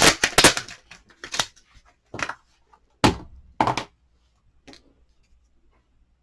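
Stamping supplies being handled on a craft table: a quick cluster of sharp taps and knocks, then single thunks about a second apart, stopping about five seconds in.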